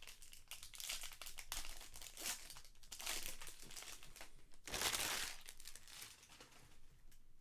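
Foil trading-card pack wrapper crinkling as it is handled and opened, a run of rustles with the loudest, longest one about five seconds in.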